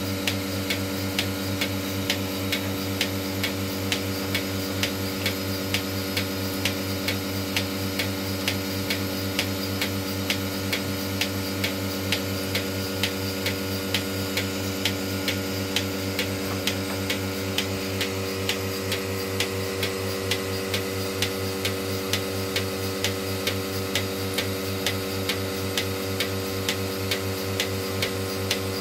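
Portable bucket milking machine running during milking: a steady hum from its vacuum pump with the pulsator clicking regularly, about two clicks a second.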